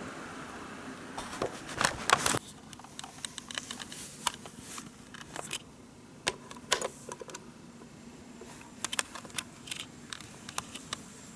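Sharp clicks and knocks of a handheld camera being moved and handled, loudest in a quick cluster about a second or two in, then scattered single clicks, over the faint steady running noise of an N-gauge model train on the track.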